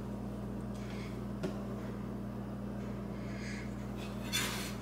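Soft, quiet sounds of floured hands working bread dough on a counter over a steady low room hum, with a faint tap about a second and a half in and a brief hiss near the end.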